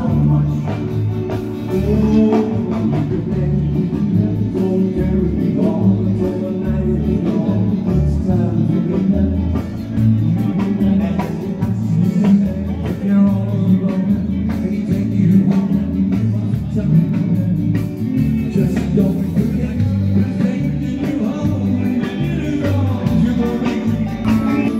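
Music: a song with a steady beat, bass notes and singing.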